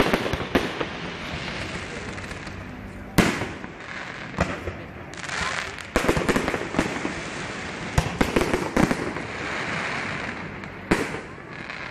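Fireworks display: aerial shells bursting with sharp bangs every two to three seconds, with a dense crackle of smaller reports and hiss between the bangs.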